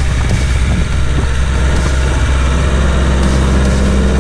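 New Holland TL75E tractor's four-cylinder diesel engine running steadily under load as it pulls a 22-disc offset harrow through unbroken ground.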